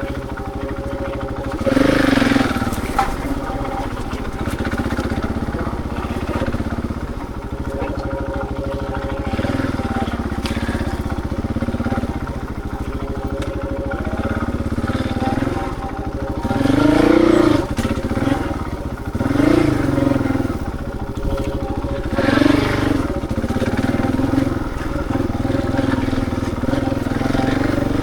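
Husqvarna 701 Enduro's single-cylinder engine running under way, with a burst of throttle about two seconds in and several more in the second half, the pitch rising and falling with each.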